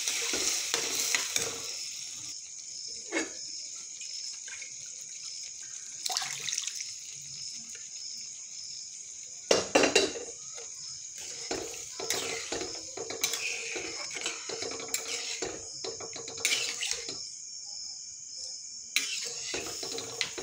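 A steel spoon stirring liquid dal in a steel kadai, knocking and scraping against the pan in several sharp clinks, the loudest about ten seconds in, over a steady sizzling hiss from the pan on the flame.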